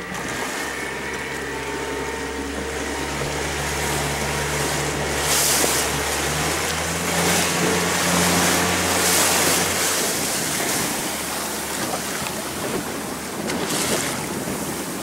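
Outboard motor of a small Arima Sea Chaser boat running under way: a steady low hum beneath the rush of wind and water, with gusts of wind on the microphone. The engine hum drops away about ten seconds in.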